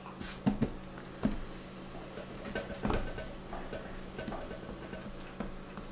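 Hands patting and pressing soft dumpling dough flat on a floured pastry mat: a few light taps and soft rubbing.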